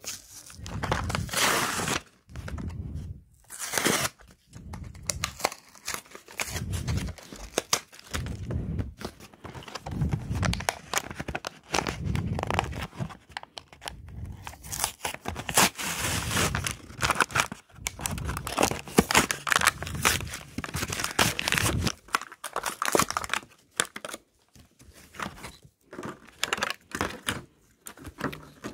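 Toy packaging of card and paper being torn open and crinkled by hand, in repeated irregular ripping bursts with short pauses between them.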